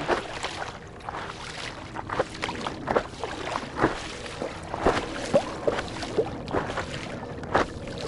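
Sea water splashing and slapping against the nose of a stand-up paddleboard as it moves through light chop, in many short, irregular splashes.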